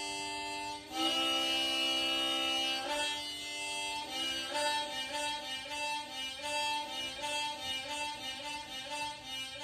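Diatonic harmonica in C sounding held chords as air is blown and drawn through it. A long chord changes to another about a second in, and from about four seconds in two chords alternate quickly, roughly two changes a second, as the breath switches between blowing and drawing.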